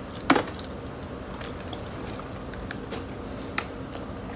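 A sharp click about a third of a second in, then a few faint ticks later on, over a low steady hum.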